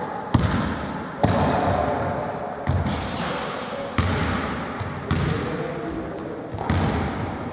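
A rubber ball thudding sharply on hands and floor about six times, roughly a second apart, each thud echoing around a large sports hall.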